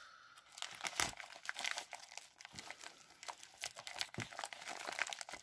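A bubble mailer being cut open with scissors: irregular crinkling and crackling of the packaging, with scattered small snips.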